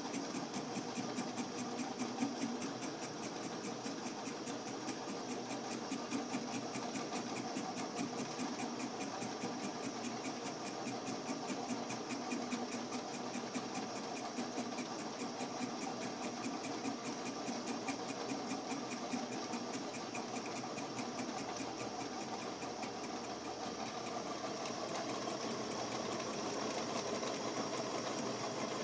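Craftsman Atlas 12-inch lathe running while a fly cutter takes interrupted cuts in a grade 8 steel bolt head during single-point milling. It makes a steady, rapid, even ticking over the hum of the motor and gears.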